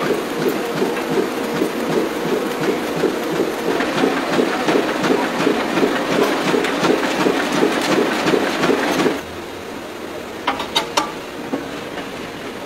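Banknote sheet-processing machinery running with a fast, regular mechanical beat of about four strokes a second. The beat cuts off suddenly about nine seconds in, leaving a lower hum. A few sharp metallic clinks follow about a second later.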